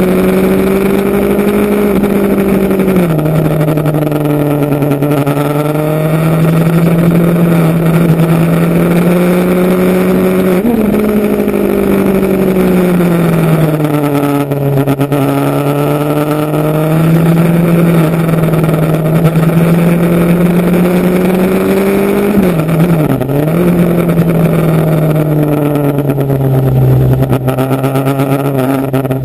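Motorcycle engine running under way, its note climbing slowly through the revs and dropping sharply at gear changes several times.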